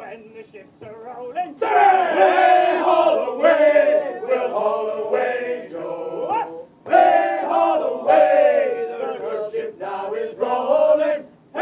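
A group of men singing a sea shanty together, unaccompanied. The full, loud chorus comes in about a second and a half in after a quieter start, with a short break in the middle.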